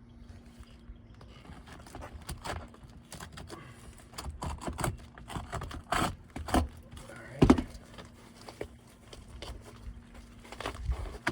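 Hand work on an asphalt roof shingle: irregular scrapes, taps and crinkles as the shingle and hand tools are handled, with one sharper knock about halfway through.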